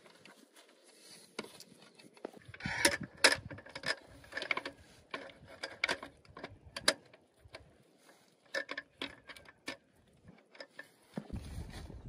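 Irregular clicks and light knocks in quick clusters, like objects being handled, with a low rumbling noise starting near the end.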